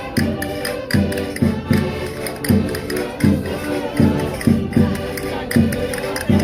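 Concertinas, the diatonic button accordions of Minho folk music, playing a lively dance tune with a steady, pulsing bass beat, with voices of a crowd under the music.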